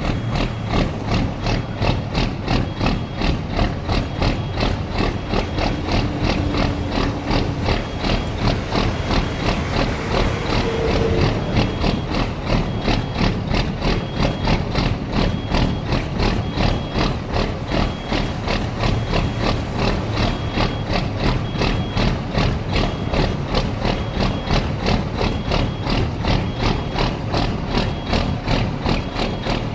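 A big-rig truck's diesel engine idling, with a regular pulsing clatter about two to three times a second.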